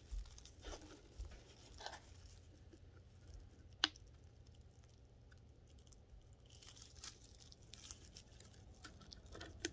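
Faint handling noises of hands on a small plastic plant pot: scattered soft rustles and light crackles, with one sharp click about four seconds in.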